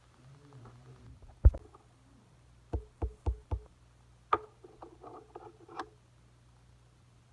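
Slime with clay mixed into it being handled: one sharp thump, then four quick low thuds about a quarter second apart, a click, and soft squishy crackling in between.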